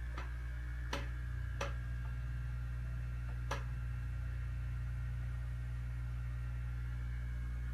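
Steady low electrical hum of aquarium equipment, such as a filter pump, with four sharp clicks in the first four seconds.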